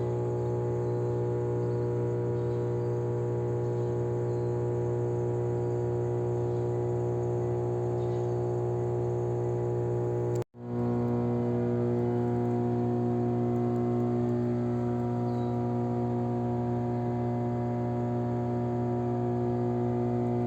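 Power transformer humming steadily: a low mains hum with many overtones stacked above it. The sound cuts out for an instant about halfway through and comes back with a slightly different mix of overtones.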